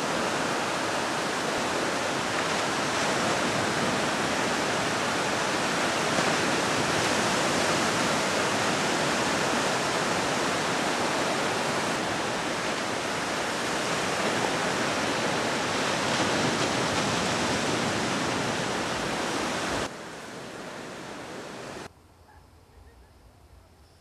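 Ocean surf breaking and washing up on a sandy beach: a steady, loud rushing wash. About 20 s in it steps down, and about 22 s in it drops away to a faint hush.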